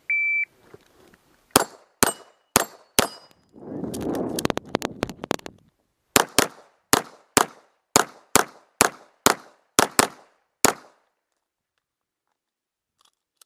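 A shot timer beeps once, then a pistol fires: four quick shots, a couple of seconds of noise, then a fast string of about a dozen shots at roughly three a second before the firing stops.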